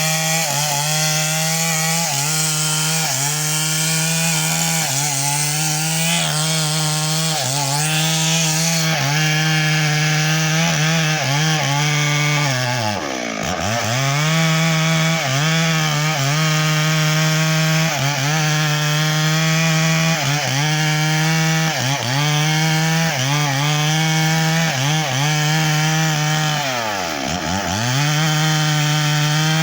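Stihl MS 382 two-stroke chainsaw running at high revs while cutting mahogany wood. Twice, about halfway through and near the end, its revs drop sharply and then climb back up.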